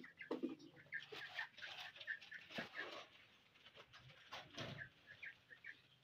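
Backyard poultry calling faintly: runs of short, high peeps repeated several times over a faint low hum.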